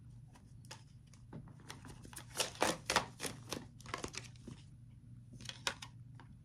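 A deck of tarot cards being shuffled and handled: a quick run of crisp card snaps and slaps, loudest in the middle and thinning out near the end.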